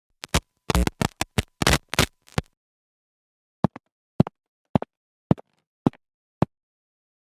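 Sharp knocks or taps: a quick, uneven cluster of about a dozen, then six single knocks evenly spaced about half a second apart.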